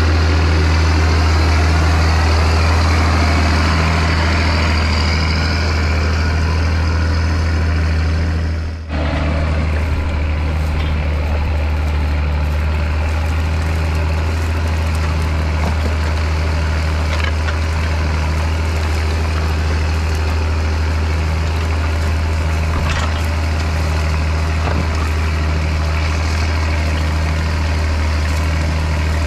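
International Harvester 5088 tractor's DT-466 six-cylinder turbo diesel running steadily under load while pulling a five-bottom moldboard plow.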